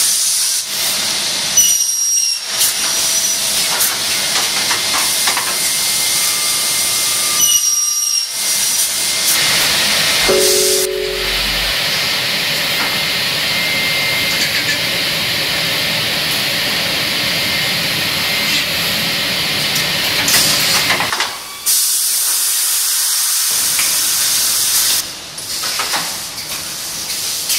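Automated window-frame production machinery with pneumatic cylinders running, heard as a steady loud hiss. The hiss breaks off briefly a few times, and a short low two-note tone sounds about ten seconds in.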